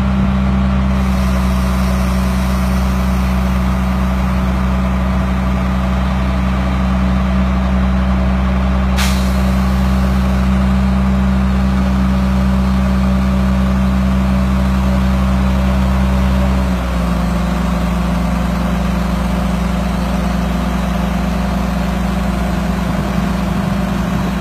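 Crane truck's diesel engine running steadily at raised speed while its crane lifts a boat, dropping to a lower, quieter note about seventeen seconds in. A brief sharp hiss or click about nine seconds in.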